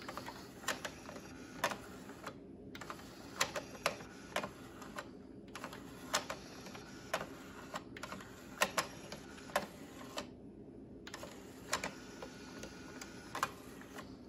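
Irregular light clicks and ticks, roughly one a second, over a faint steady hum, from a Fisher 5-disc CD changer's mechanism during a test run.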